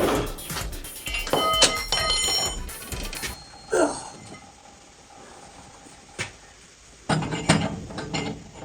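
Steel clanking and knocking as the car body's rotisserie is handled, with a few knocks that ring out with a metallic tone early on and another cluster of knocks near the end.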